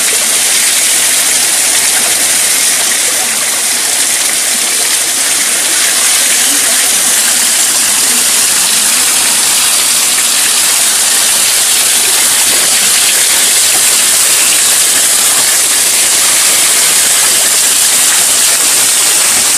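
Small waterfall pouring over rocks and splashing steadily into a shallow rock pool: a continuous rushing hiss.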